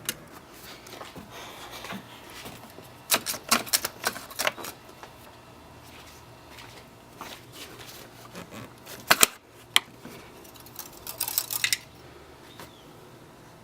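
Clicks, taps and light rattles of handling under the hood: the engine oil dipstick being pulled from and pushed back into its tube. They come in a cluster a few seconds in, two sharp knocks about halfway, and another cluster near the end.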